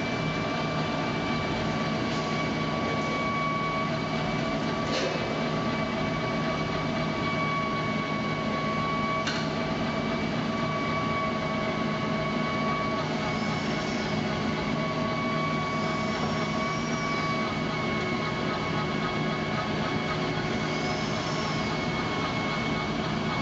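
Bell-lift mechanism raising the kiln section on its cable over the pulleys: a steady machine hum, with a few faint high squeaks in the second half.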